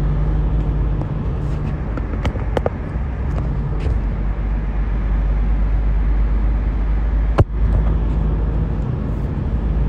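Steady low road and engine rumble inside a moving car's cabin, with a few light clicks and one sharp knock about seven seconds in.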